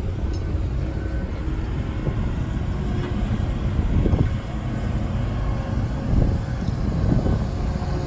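Low, steady rumble of construction machinery: a diesel excavator's engine running, with faint steady engine tones over it.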